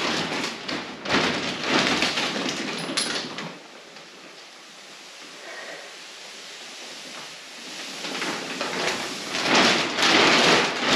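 Mattress packaging rustling and crinkling as it is handled and pulled open, in two loud spells with a quieter stretch in the middle.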